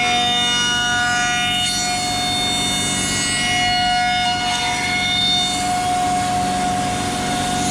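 CNC router spindle running with a steady high whine while the bit cuts a wooden chair seat, with a rougher cutting noise that swells and fades.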